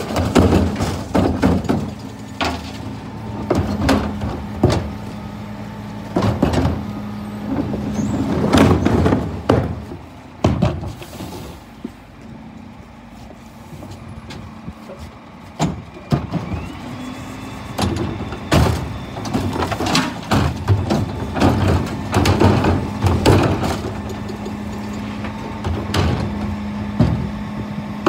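Scania P320 refuse lorry's diesel engine running steadily to drive the hydraulic bin lifters on its Dennis body, with repeated knocks and bangs of plastic wheelie bins being tipped, shaken out and rolled about. The knocking eases off for a few seconds in the middle.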